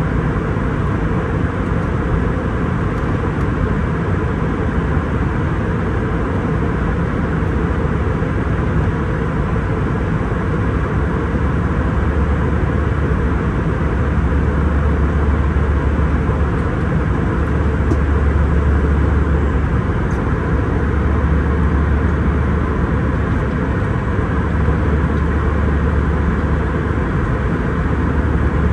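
Steady cabin noise of an Airbus A319-132 at altitude: the rush of air over the fuselage together with the hum of its IAE V2500 jet engines. A deep low rumble swells and eases several times in the second half.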